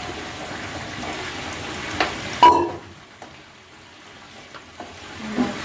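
Biryani rice frying with onions and spices in a large metal pot, a steady sizzle while a spoon stirs and scrapes it. About two seconds in, the spoon knocks sharply against the pot twice, the second knock with a brief ring, and the sizzle then drops quieter.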